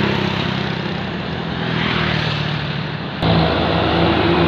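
Tour bus diesel engine running as the bus passes on the road, with a steady low drone. About three seconds in the sound cuts suddenly to another bus engine running steadily.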